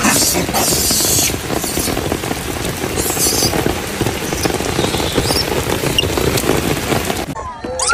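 Rain pattering steadily on wet pavement, a dense hiss of small drops, which stops abruptly near the end.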